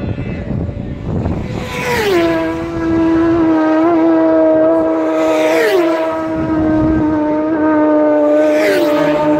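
Three racing motorcycles pass in turn at full speed, about three seconds apart. Each engine note drops sharply in pitch as the bike goes by, then holds a steady high note as it pulls away flat out.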